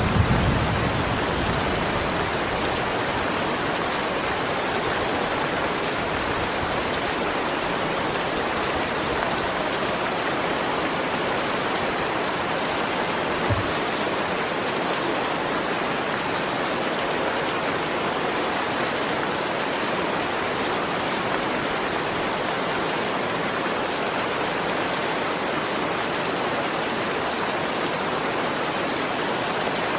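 Steady rain pouring down, an even rushing hiss. A low rumble fades out in the first second, and a single brief low thump comes about halfway through.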